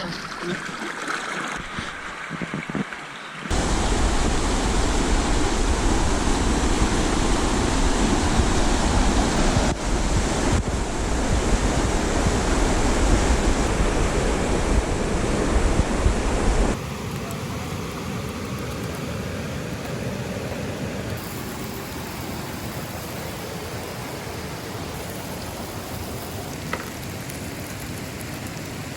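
Steady rush of flowing river water. It gets abruptly louder, with a deep rumble, about three and a half seconds in, and drops back to a softer rush at about seventeen seconds.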